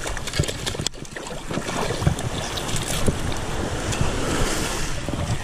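Wind buffeting the microphone over small waves washing on the beach, with a few brief clicks.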